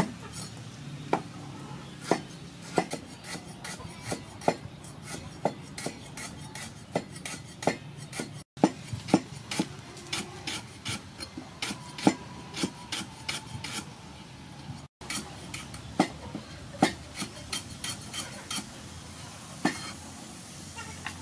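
Cleaver chopping lemongrass stalks on a thick round wooden chopping block: sharp knocks at an uneven pace, one to three a second, with the blade scraping the wood between strokes. The sound cuts out briefly twice.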